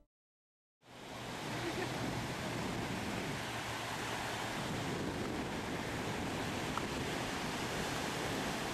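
Ocean surf breaking and washing up a beach, a steady rush that fades in after nearly a second of silence.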